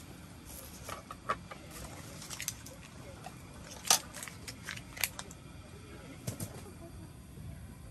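Dishes and utensils being handled: a scattered run of light clicks and clinks, the sharpest about four seconds in, over a low steady background hiss.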